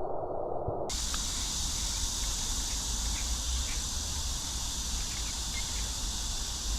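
Outdoor ambience of insects chirping: a steady high hiss with faint scattered ticks over a low rumble. It starts abruptly about a second in, cutting off a dull, muffled noise.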